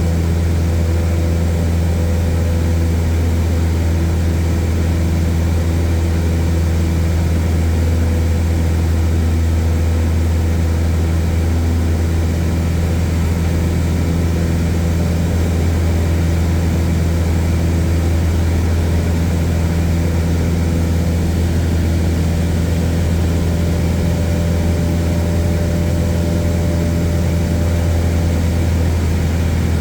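Airplane engine droning steadily in flight, a constant low hum with a hiss of airflow over it, heard from inside the cabin.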